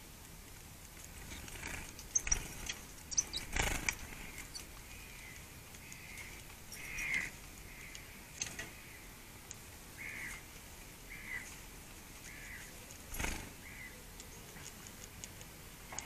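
Small tits at hanging wire garden feeders: sharp knocks and clatter as they land on and peck at the feeders, bunched a few seconds in and again near the end. Between these come five or six short, soft bird calls.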